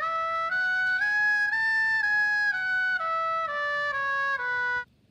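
A trumpet playing a slow scale of about a dozen held notes, stepping up and then back down, and stopping sharply near the end.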